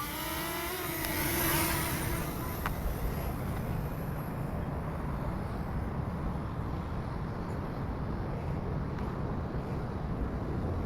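Steady low rumble of road traffic, swelling slightly about a second and a half in.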